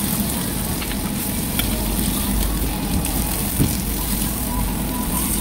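Beef slices sizzling on a hot grill stone, a steady hiss over a low hum, with a light click about three and a half seconds in.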